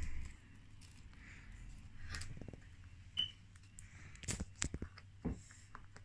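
Faint fizzing of a baking soda and tartaric acid toy volcano foaming over, with a few light clicks and taps in the second half.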